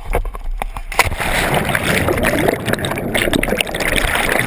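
A person and camera plunging into a river about a second in with a sharp splash, then a few seconds of churning water and bubbles rushing, heard from underwater.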